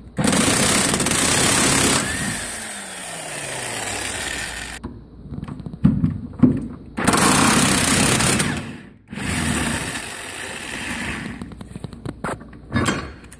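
Impact wrench running on the nut of the rear subframe bracket to remove it, in three runs. The first is about two seconds long and is followed by a falling whine as the tool winds down. Two shorter runs come a few seconds later, with metal clinks from the socket and nut between them and near the end.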